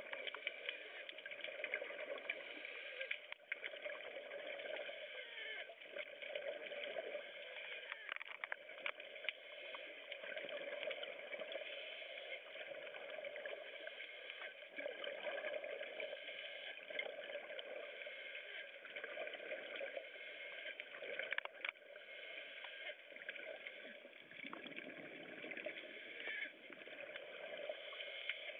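Underwater scuba sound: a diver breathing through a regulator, each exhalation a gurgling rush of bubbles every four to five seconds, over a steady high hum.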